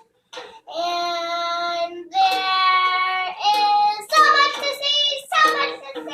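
A young girl singing a song of her own making: two long held notes, then a run of shorter, quicker notes.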